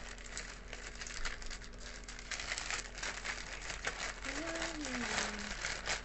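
Plastic mailer bag crinkling and rustling as it is handled and pulled open, with many fine crackles.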